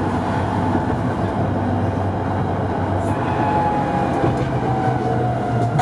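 Inside a Tatra T5C5 tram running on its track: a steady rumble of wheels and running gear with a low hum. A faint whine falls slightly in pitch in the second half.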